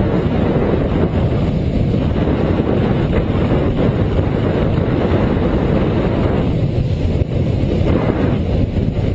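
Wind rushing over the built-in microphone of camera sunglasses worn while riding a motorcycle, a steady heavy rumble mixed with the motorcycle's running.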